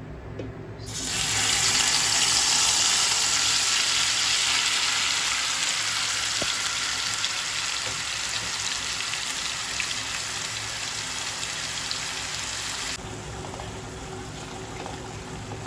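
Blended wet spice paste (onion, shallot, garlic, red chilli and candlenut, blended with a little water) sizzling loudly as it hits hot oil in a wok. The hiss starts about a second in, eases off slowly, and drops away sharply near the end.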